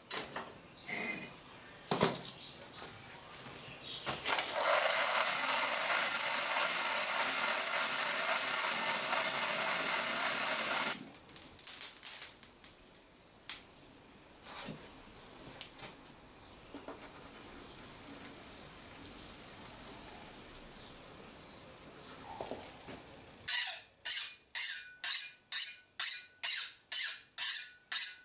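A hot steel knife blade being quenched, plunged again and again into a quench tank: a quick run of about a dozen sizzling pulses, two to three a second, near the end. Earlier comes a steady loud rushing hiss lasting about six seconds, with scattered knocks.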